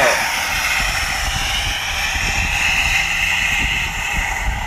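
A truck running while it drags a pulled-down billboard, the billboard's metal frame scraping along the road in a steady rough noise over a low rumble.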